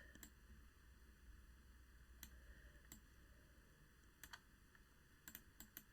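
Faint, scattered clicks of a computer mouse, about eight in all, with a quick cluster of them near the end, over near-silent room tone.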